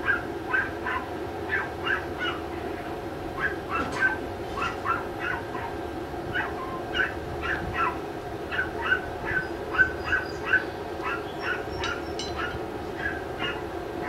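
A dog yapping over and over in short, high calls, often in quick runs of two or three, over a steady hum.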